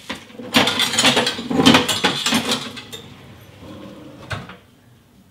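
Kitchen utensils and mixer attachments clattering and clanking as someone rummages in a low kitchen drawer for the stand mixer's dough hook, then a single click at the mixer a little after four seconds in.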